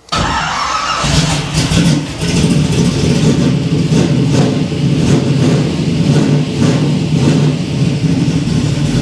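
1967 Camaro's engine cranked on the starter from the ignition key, catching within about a second and then running steadily. This is its first start off the key on newly run wiring.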